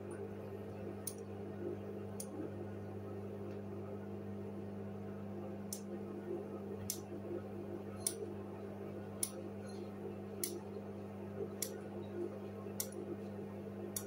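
Hoover front-loading washing machine turning its drum slowly with a wet load: a steady motor hum, with a sharp click about once a second, once per drum turn, pausing briefly near the start.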